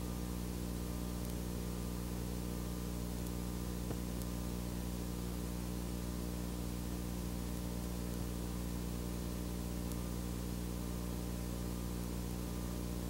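Steady electrical hum with a stack of overtones, under an even hiss, with no other sound.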